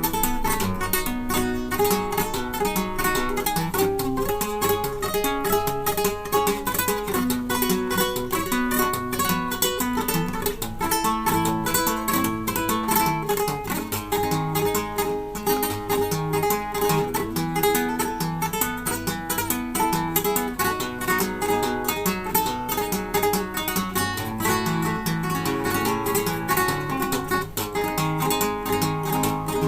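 Solo classical guitar played fingerstyle: a continuous, busy run of plucked notes with bass notes under the melody.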